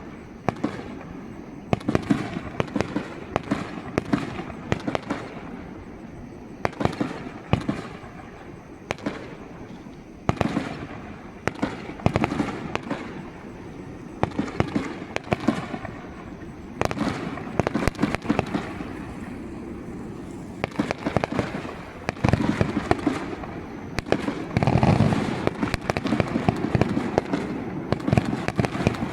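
Aerial fireworks going off in quick succession: a steady run of sharp cracks and crackling reports, with deeper booms echoing between them.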